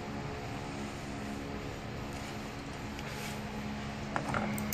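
A steady machine hum throughout, with a few light clicks of steel safety wire being handled on the rotor hat's bolts about four seconds in.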